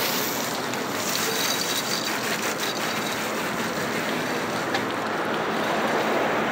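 Hose water jet spraying onto a car's metal body and glass, a steady hiss.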